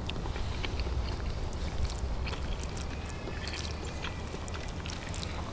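A wooden spoon clicking and scraping lightly in a collapsible silicone cup of tofu scramble, scattered small clicks over a steady low rumble.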